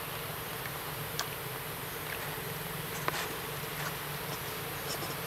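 Steady insect noise: a continuous high-pitched drone with a low steady hum beneath it, and a few faint sharp clicks scattered through.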